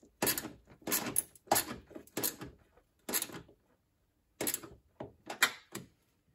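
Handling noise from hands working on parts and wiring: a run of short scrapes and clicks, with about a second's pause about three and a half seconds in.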